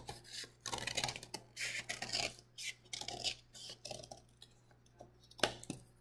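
Scissors cutting through a paper plate: a run of short snips with paper rustling, thinning out after about four seconds, with a sharper click near the end.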